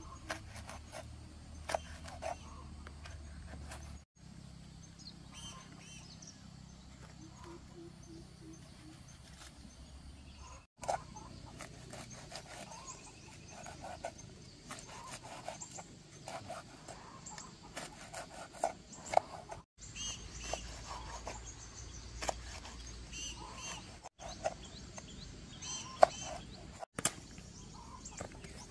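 Knife chopping through green bananas onto a wooden cutting board: short, irregular knocks, a few much sharper than the rest. Birds call faintly in the background.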